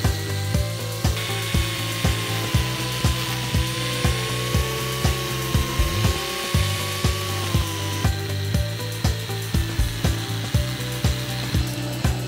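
Background music with a steady beat of about two beats a second, over the running whine of an angle grinder turned grass cutter as it cuts through grass.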